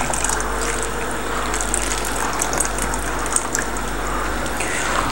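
Cornflour slurry poured from a cup into a pot of hot chicken stock, a steady sound of pouring liquid.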